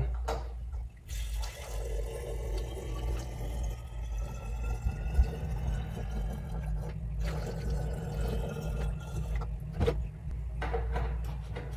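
Water poured from a plastic gallon jug through a funnel into a glass one-gallon jug, its pitch slowly rising as the jug fills. The pour pauses briefly about seven seconds in, then there is a single knock just before ten seconds as the jug is set down on the stone counter.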